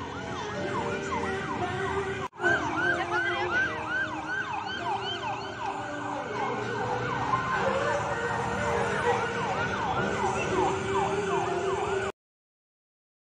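A fast siren-like wail repeating about three rising-and-falling sweeps a second over steady background music, cutting off about a second before the end.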